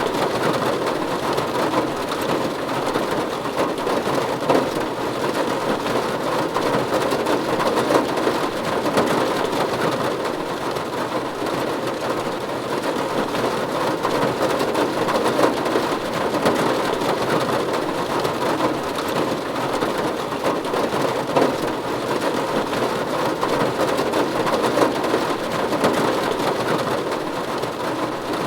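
Rain falling steadily on a roof: a dense, even patter of drops that keeps up without a break.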